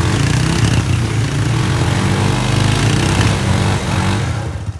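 ATV engine held at high revs under load as the four-wheeler works its way through a deep mud rut, a steady low engine note with a loud rushing noise over it. The throttle comes off a little before the end.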